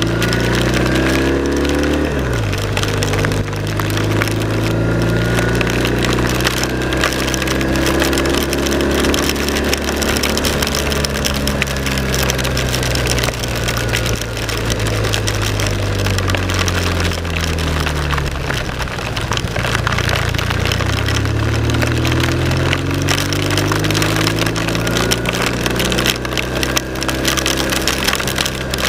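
BMW R1200 RT-P motorcycle's boxer-twin engine pulling away and riding on, its revs climbing and then dropping at gear changes, once just after the start and again about two-thirds through. A steady loud rushing of wind and road noise runs underneath.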